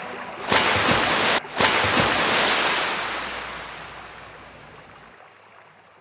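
A rush of water noise like surf, starting suddenly about half a second in, cutting out for a moment, then fading away over a few seconds.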